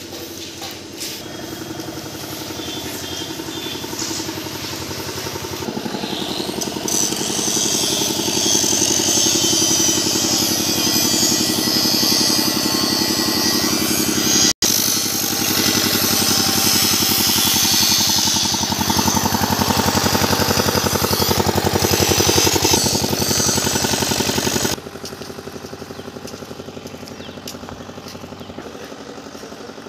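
An engine running steadily with a fast regular pulse, growing louder over the first several seconds. It breaks off briefly near the middle and drops sharply to a lower level about three-quarters of the way through.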